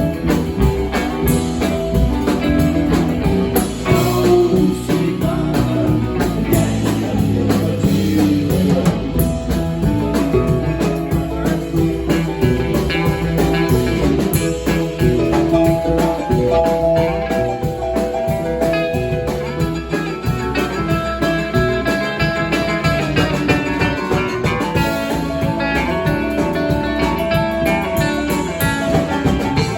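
Live band playing a guitar-led tune over a drum kit.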